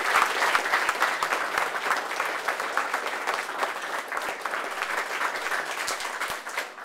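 A small crowd applauding, many hands clapping at once; loudest at the start and thinning a little toward the end.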